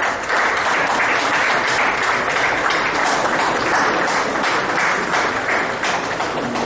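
Audience applauding in a hall, starting suddenly and easing off slightly near the end.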